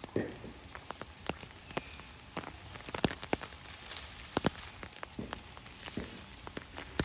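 Rain falling, with big drops tapping irregularly on a hard surface close by, over a steady patter, and a couple of duller thuds among them.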